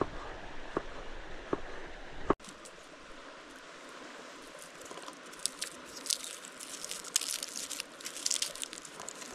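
Garlic bulb being broken apart and its cloves peeled by hand: short, dry, papery crackles and crinkles of the skins, most dense in the second half. Before a cut about two seconds in, a steady rush with sharp ticks about every three-quarters of a second.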